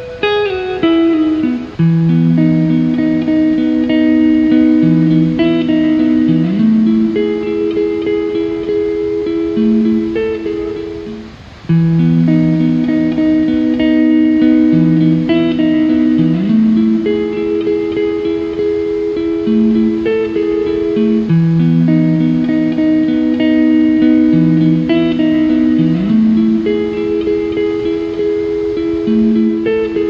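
Calm background music of slowly plucked guitar, with sustained notes moving through a repeating chord pattern. It fades briefly about a third of the way through, then picks up again.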